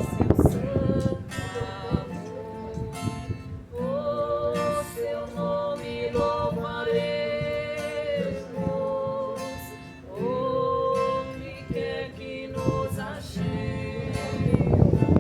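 A Congregação Cristã no Brasil hymn played with a plucked guitar under a melody of long held notes, several of them sliding up into pitch. Wind buffets the microphone, loudest near the start and again near the end.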